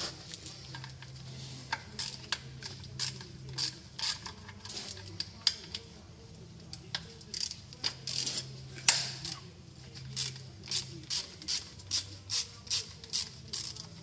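Ratchet wrench on a socket extension clicking as a bolt is worked under the engine, with the clicks coming in a steady rhythm of about three a second near the end. A low hum runs underneath.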